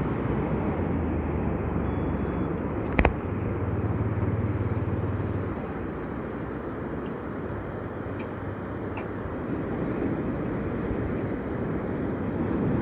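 Surf on a sea beach, a continuous rush of breaking waves that eases off in the middle and swells again near the end. There is one sharp click about three seconds in.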